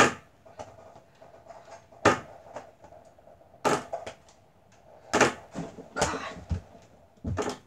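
A mini basketball thudding against an over-the-door hoop's backboard and the door, and bouncing on the floor: about six sharp knocks one to two seconds apart, the first the loudest.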